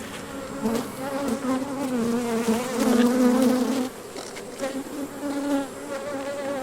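Honeybees buzzing around an opened hive: a wavering hum, louder in the middle and falling back about four seconds in.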